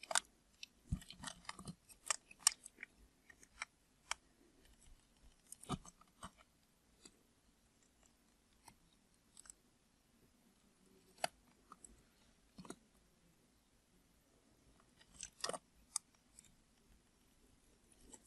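Blade cutting through dry bar soap: crisp clicks and crackles, some single and some in short clusters, every few seconds.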